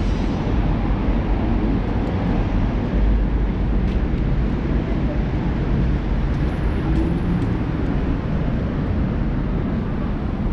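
Steady, loud, low rumbling street noise of an outdoor city walk.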